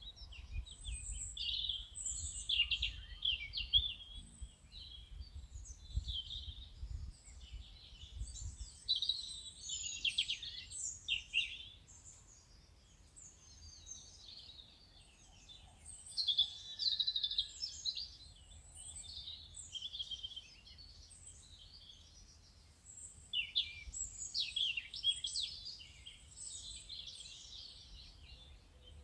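Several birds chirping and singing at once, a dense, overlapping chorus of short high calls, with a low rumble underneath during roughly the first nine seconds.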